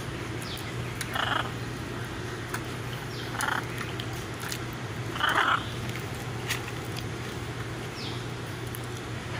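Blue-and-yellow macaw giving three short harsh calls, about two seconds apart, with a few faint high chirps between them.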